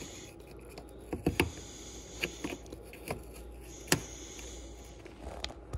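Scattered light plastic clicks and taps as hands fit a splitter piece and plastic push-pin rivets under a car's front bumper, the sharpest click about four seconds in.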